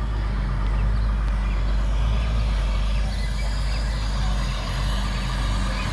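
Heavy tractor-trailer truck hauling a very heavy oversized load, its diesel engine running with a steady low drone that grows louder over the first second as the truck approaches.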